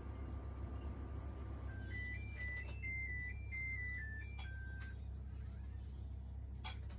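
A short electronic chime melody of about a dozen clean beep notes stepping up and down in pitch, lasting about three seconds and starting about two seconds in, over a steady low hum. A brief click comes near the end.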